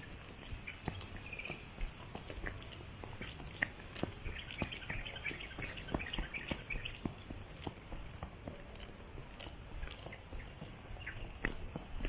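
Footsteps on a walking path, a sharp click at each step, with small birds chirping in short bursts.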